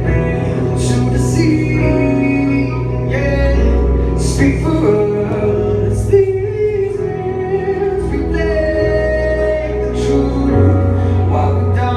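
Live band music with a singer holding long, wavering notes over steady bass and repeated cymbal hits.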